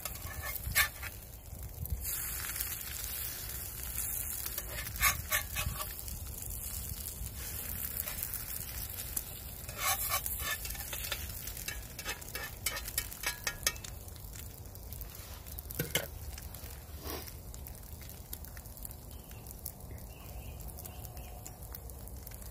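Eggs sizzling in a frying pan on campfire embers, with a metal spatula scraping and tapping the pan now and then as the eggs are broken up and turned.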